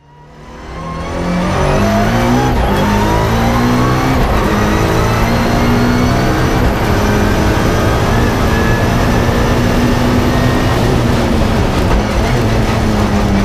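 Lancer Evo 5 race car's turbocharged four-cylinder engine at full throttle, heard from inside the cabin, climbing in pitch and dropping back at quick paddle-shifted upshifts through the sequential gearbox. The sound fades in over the first second or so.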